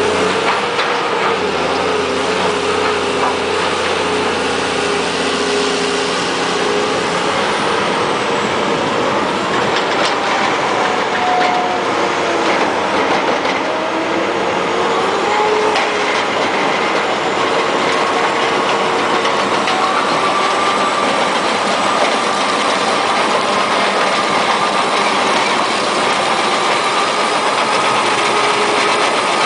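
MB BF120 jaw crusher bucket on an excavator crushing demolition rubble: a steady, loud rattle and grind over the drone of the machine's engine and hydraulics, with whining tones that wander in pitch.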